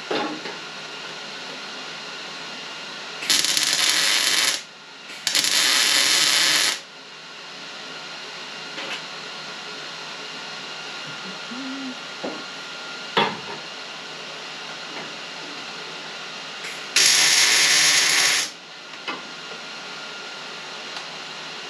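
MIG welder laying welds on a steel floor brace in three bursts of a second or so each: two close together a few seconds in, and one more past the middle. A single sharp tap falls between them.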